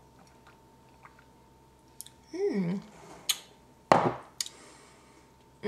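A woman sipping a drink in a quiet room, with a few small clicks, a short falling 'mm' of tasting about two seconds in, and a sharp knock about four seconds in, loudest of all.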